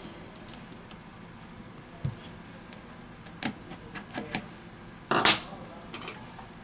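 Light clicks and taps of a precision screwdriver and small metal parts against a smartphone's opened frame, with a single louder scuff about five seconds in.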